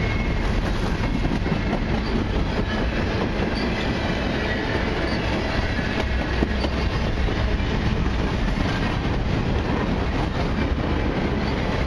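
Freight train of covered hoppers and tank cars rolling past at close range: a steady rolling noise of steel wheels on the rails, with a faint wheel squeal near the start.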